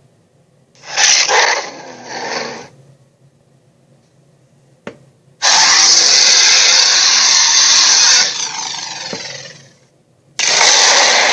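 Harsh, loud dinosaur roar sound effects: a short roar about a second in, then a long roar that trails off, and another starting near the end.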